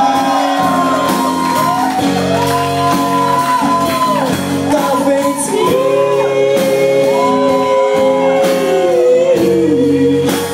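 Live band music: acoustic-electric guitar and drum kit under a vocal line of long, held notes that slide from pitch to pitch.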